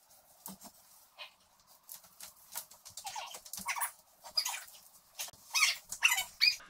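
A series of short animal calls, scattered and irregular, among light clicks and rustling.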